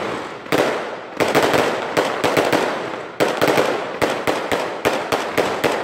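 Fireworks display: a rapid, uneven string of sharp bangs from shells bursting overhead, several a second, with crackling between the reports.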